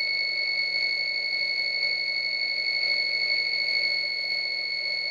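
APC Back-UPS 500 alarm sounding a continuous, steady high-pitched beep while the unit runs on battery under a heavy 3D-printer load, which the owner takes as perhaps a protest that it is at its limit.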